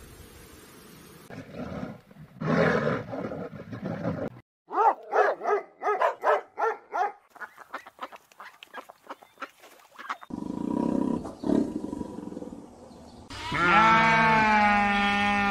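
Several different animal calls one after another. A fast run of short, evenly spaced pitched calls comes from about five to seven seconds in, and a long, wavering pitched call starts near the end.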